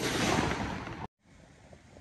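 The dying echo and crackle of an aerial shell that has just burst from a 25-shot fireworks cake, fading over about a second and then cutting off abruptly, leaving faint quiet.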